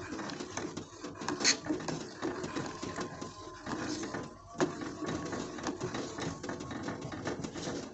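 Pestle grinding kencur and ginger in a mortar (ulekan on a cobek), a rapid irregular run of knocks and scrapes as the roots are worked to a fine paste.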